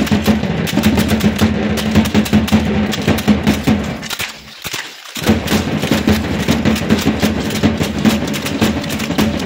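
Matachines dance music: a fast, steady drum beat with many sharp clicks over it. It drops out for about a second just before the middle, then picks up again.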